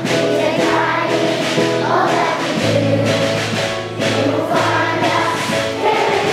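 A group of young children singing a school song together in unison, with instrumental accompaniment holding long low notes beneath the voices.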